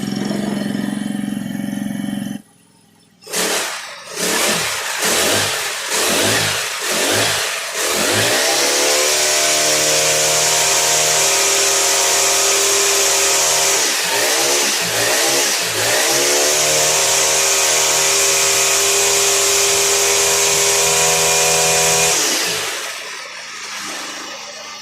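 Four-stroke brush cutter engine, just repaired, running; after a brief break it is revved in about five quick throttle blips, then held at high revs for about fourteen seconds with two short dips, and drops back near the end.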